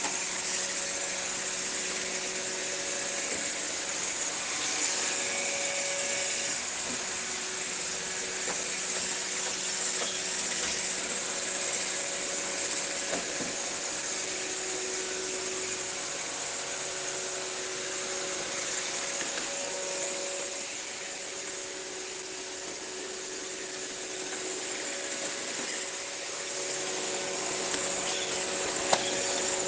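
Steady white noise for soothing a baby to sleep: an even hiss with a faint hum under it, dipping slightly about two-thirds of the way through, and one sharp click near the end.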